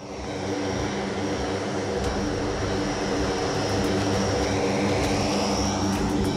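The four Rolls-Royce AE2100D3 turboprop engines of a C-130J Super Hercules run on the ground: a steady propeller drone with a high turbine whine. It swells in quickly at the start and then holds steady.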